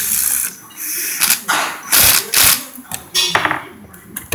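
Rubber intake hose and metal hose clamps being handled and worked into place by hand close to the microphone: a run of short, irregular scraping and rustling noises, several of them loud.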